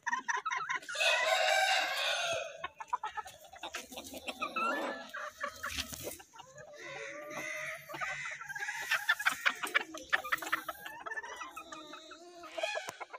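Chickens clucking, with a rooster crowing once, a long call of about a second, starting about a second in; short repeated clucks and calls follow.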